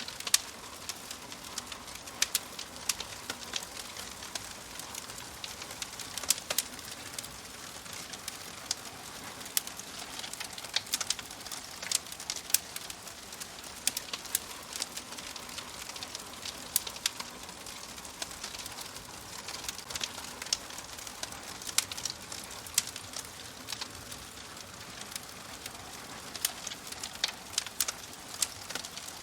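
Wood fire crackling: irregular sharp pops and snaps, several a second, over a steady soft hiss.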